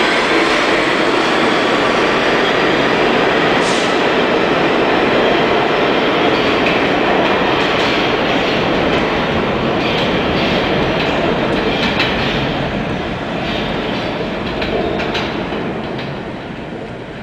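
New York City subway train pulling out of an underground station: a steady, loud rumble of steel wheels on the rails with clicks over the rail joints, fading away over the last few seconds as it leaves.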